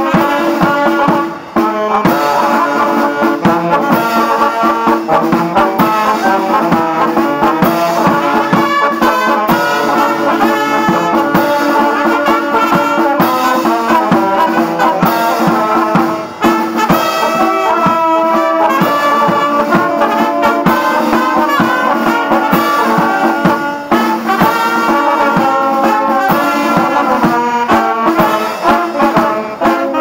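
A small wind band of flute, saxophones and brass playing a tune together, with brief breaks between phrases about a second and a half, sixteen and twenty-four seconds in.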